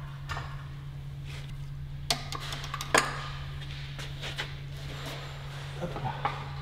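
Scattered light metallic clinks and knocks from tools and engine parts being handled during an engine teardown, with two sharper knocks about two and three seconds in, over a steady low hum.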